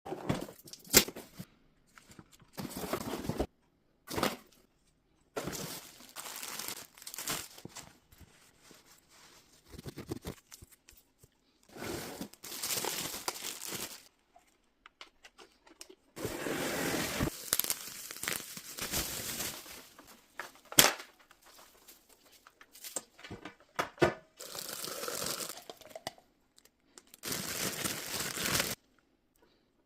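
Packaging of a steam cleaner being opened and handled: stop-start tearing and crinkling in bursts of a second or two with short pauses, and a few sharp clicks or knocks, the loudest about a second in and about 21 seconds in.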